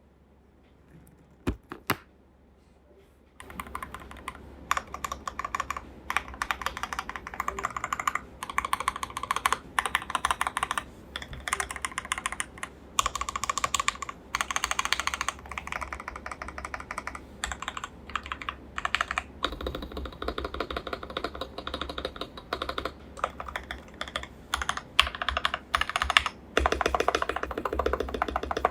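KBD67 Lite mechanical keyboard being typed on fast, a dense run of key clacks. Two single key clicks come first, then continuous rapid typing starts about three and a half seconds in, with short pauses.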